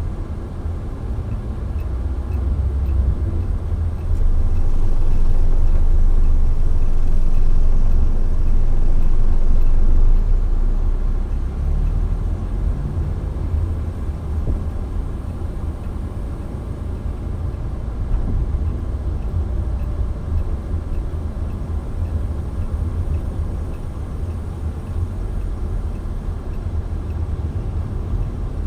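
A car on the move, heard from inside: a steady low rumble of engine and road noise, swelling louder for several seconds near the start before settling back.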